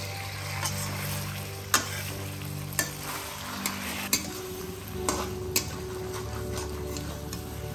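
Mutton pieces frying and sizzling in a metal pan while being stirred with a spatula, which knocks and scrapes sharply against the pan about five times.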